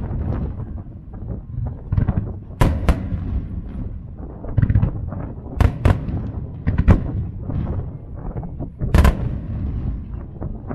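Aerial fireworks shells bursting overhead: a string of sharp booms at uneven intervals, the loudest about nine seconds in, with a low rumble of echoes and crackle between them.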